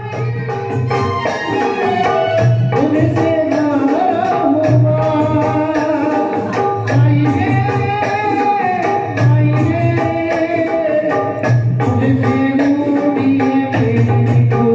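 Music: a singing voice with wavering, gliding pitch over a steady rhythm of percussion strokes, in an Indian folk or devotional style.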